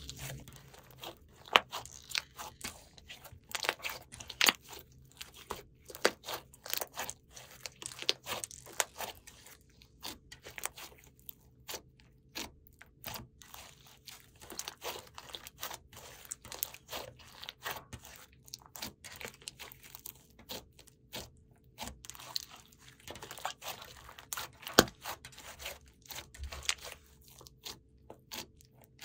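Hands kneading, poking and stretching a thick green slime mixed with small beads, making irregular crunchy pops and crackles as air pockets burst and the beads shift.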